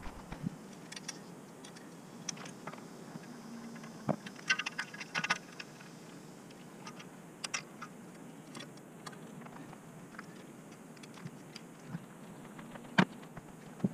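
Scattered light clicks, taps and metal rattles of an e-bike and a metal-framed kayak trailer being handled, with a brief cluster of rattling about five seconds in and a sharper knock near the end.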